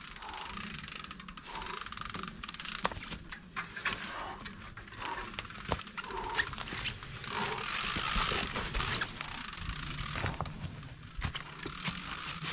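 Electric mountain bike's knobby tyres rolling and crunching through a thick layer of dry fallen leaves, with scattered clicks and knocks from the bike over roots and rocks. The rustle swells about halfway through.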